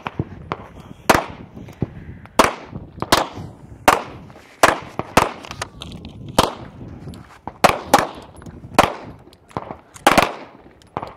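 Pistol shots fired in an irregular string, more than a dozen sharp cracks about half a second to a second apart, some louder than others as several shooters fire at once.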